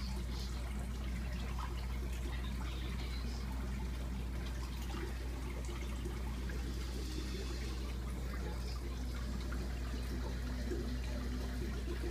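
Aquarium water bubbling and trickling steadily over a low, steady hum from the tank's pump or filter.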